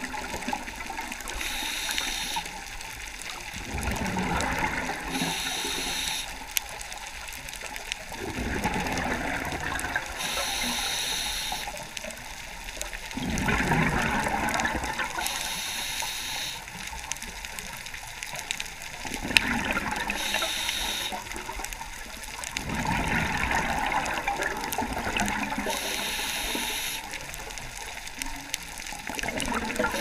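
Scuba diver breathing through a regulator underwater: a hissing inhale followed by a rushing, bubbling exhale, repeating about every five seconds.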